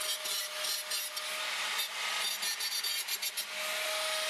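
Angle grinder with an ordinary grinding disc grinding rust off steel, baring the metal for welding: a gritty grinding noise that swells and eases in short strokes, with a steady whine underneath.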